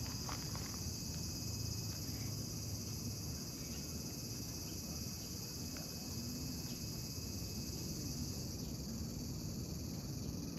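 Steady, high-pitched chorus of insects, a continuous shrill drone that never breaks.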